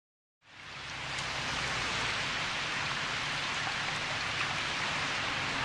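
Steady rain falling, an even hiss that fades in over the first second.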